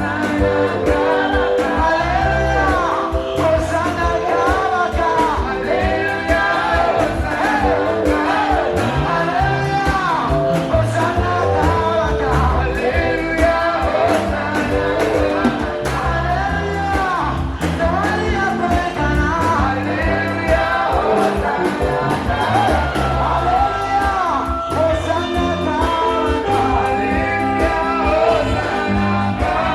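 Worship music: singers over a band with a steady beat, with occasional shouts.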